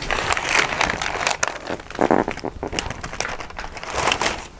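Butcher paper crinkling and rustling as a paper-wrapped brisket is gripped and lifted in gloved hands, with a string of short sharp crackles.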